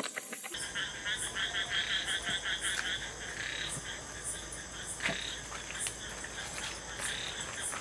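Night ambience of frogs croaking in a fast pulsing run for the first few seconds. Insects chirp at a steady interval throughout, over a low hum, with a single soft knock about five seconds in.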